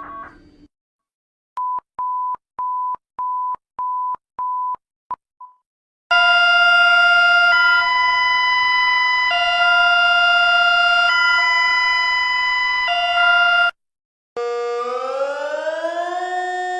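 Emergency alert alarm tones played one after another: a run of steady single-pitched beeps, about two a second, then a loud alarm of several tones at once switching back and forth between two chords every couple of seconds, then, after a short gap, a siren wail rising in pitch.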